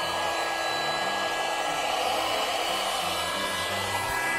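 Small electric air pump running steadily, blowing air into an inflatable car mattress: an even whoosh with a thin motor whine.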